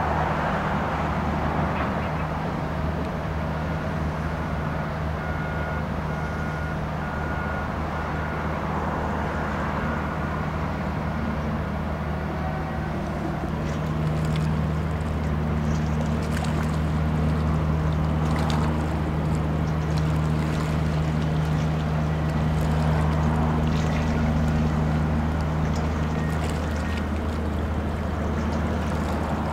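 Steady low drone of an inland cargo barge's diesel engine, getting a little louder about halfway through as the ship passes, over a hiss of moving water.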